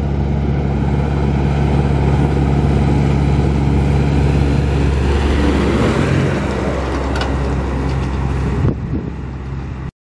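Claas tractor's diesel engine running steadily as the tractor drives past on the road, its engine and tyre noise building as it nears, passing close about six seconds in, then easing off as it pulls away.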